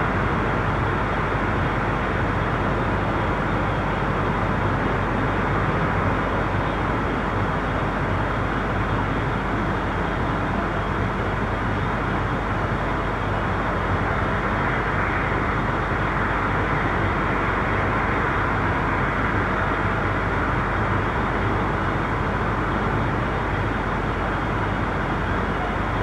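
Steady wash of distant traffic on a busy street or highway, tyre and engine noise blended into one continuous rumble, swelling slightly about halfway through.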